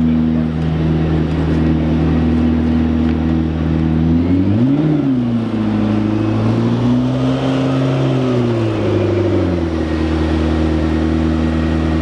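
McLaren P1 GTR's twin-turbo V8 idling, with a quick throttle blip about four seconds in, then held at higher revs for a few seconds before settling back to idle.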